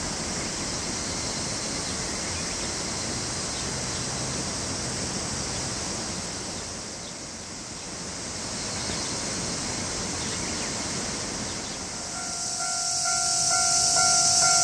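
Steady rushing background noise. About twelve seconds in, an electronic railway level-crossing warning bell starts ringing in a rapid repeating ding, about two a second, and becomes the loudest sound.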